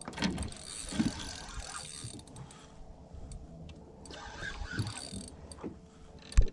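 Spinning reel cranked against a heavy fish on a bent rod, its gears and drag clicking unevenly. A sharp thump near the end is the loudest sound.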